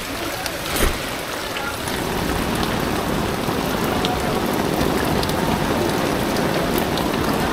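Heavy rain falling on a flooded street, a steady hiss that grows fuller about two seconds in. One sharp knock comes a little under a second in.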